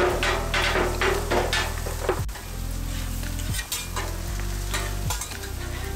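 Scallops, steak and vegetables sizzling on a hot flat-top griddle, with a metal spatula and fork scraping and tapping on the steel several times in the first couple of seconds. Low background music with sustained chords runs underneath.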